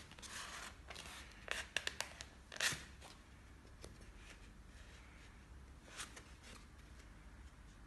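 Foam toy glider being handled, its foam parts rubbing and scraping against each other and the hands in short scratchy bursts, most of them in the first three seconds and one more about six seconds in.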